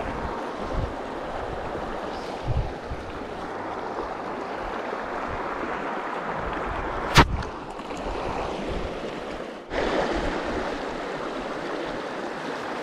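Small rocky creek running over stones, a steady rush of water, with a few low bumps on the microphone in the first seconds and one sharp click about seven seconds in.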